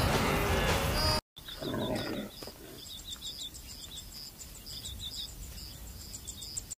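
Loud music cuts off about a second in. After a brief gap comes a short, low growl, which fits the leopard dragging its kill. Then birds call over and over: a high chirp about twice a second with trills beneath.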